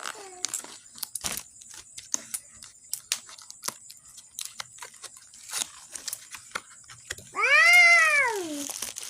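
Plastic packaging being handled and opened, with scattered small clicks and crinkles. About seven seconds in, a cat gives one loud meow that rises and falls in pitch.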